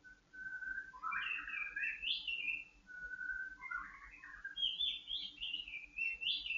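White-rumped shama (murai batu) singing: a string of whistled phrases, some opening on a steady held note and breaking into quick rising and falling runs, the later phrases pitched higher.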